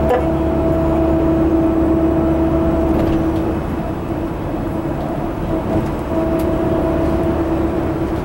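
Tour coach driving along, heard from inside the cabin: a steady engine and road drone with a steady hum over it. The hum fades briefly near the middle and comes back.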